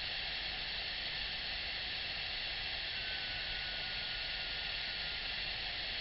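Steady rush of a waterfall pouring down over bare rock, an even hiss with no breaks. A faint thin tone holds for about two seconds in the middle.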